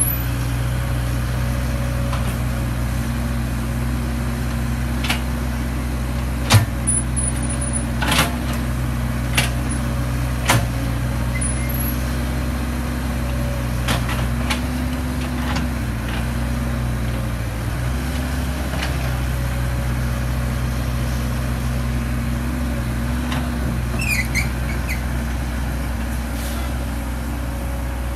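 Caterpillar E120B hydraulic excavator's diesel engine running steadily as the machine digs, its note lifting briefly a couple of times as the arm works, with a few sharp knocks in the first half.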